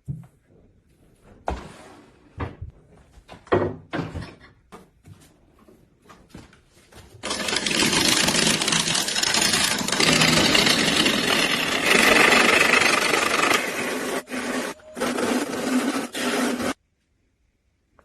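A few scattered knocks and clicks, then a power tool working wood and resin: a loud, harsh, steady noise for about nine seconds that stops abruptly.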